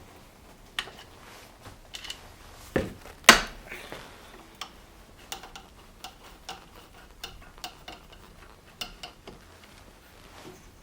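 Metal parts and hand tools clinking and clattering during the teardown of an old chainsaw: irregular sharp clicks and knocks, some with a short metallic ring, the loudest knock about three seconds in.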